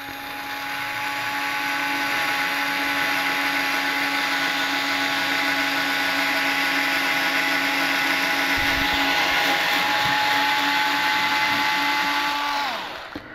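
Tilswall cordless electric screwdriver with a drill bit boring a pilot hole into a wooden 2x4: its small motor and gearbox make a steady whine. The whine builds over the first couple of seconds, holds, then drops in pitch and stops near the end as the hole is finished.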